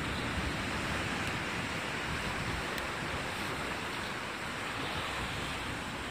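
Steady hiss of sea surf washing against the rocks.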